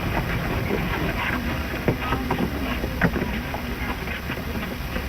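Steady hiss and low rumble with scattered crackles and pops, the surface noise of an old 1929 film soundtrack; the sharpest pops come about two and three seconds in.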